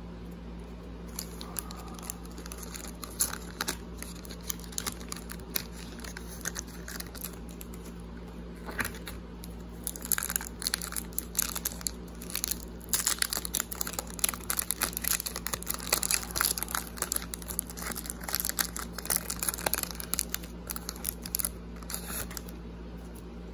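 A trading card pack wrapper being handled, then torn open and crinkled in the hands. Scattered crackles come first, then a dense run of crinkling over the second half.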